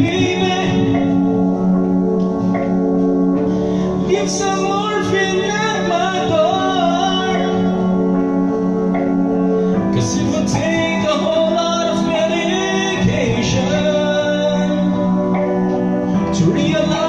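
A man singing karaoke into a microphone over a backing track of sustained chords, which change about ten seconds in.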